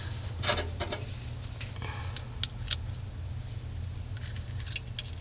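A few light, sharp clicks and clinks of battery cable terminals and hand tools being handled under the hood, over a steady low hum.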